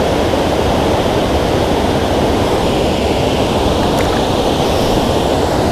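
Water pouring over a low dam spillway, a loud, steady rushing, with a small splash about four seconds in as a small fish drops back into the river.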